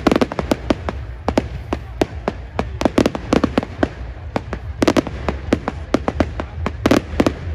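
Fireworks display: a rapid, irregular run of sharp bangs and cracks from bursting shells, several a second, with louder clusters about three, five and seven seconds in.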